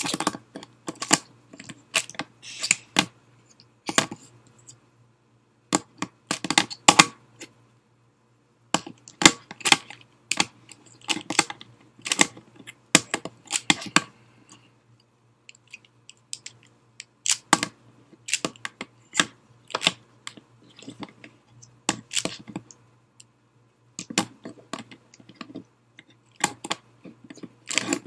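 A Dayan Zhanchi 3x3 speed cube being turned one-handed: rapid runs of plastic clicking and clacking as the layers snap round, broken by a few pauses of a second or two.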